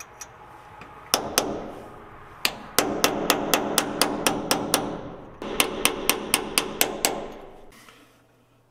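Hammer striking metal repeatedly, each blow ringing: two blows, then a quick run of about a dozen at roughly six a second, a short pause, and another run of about eight.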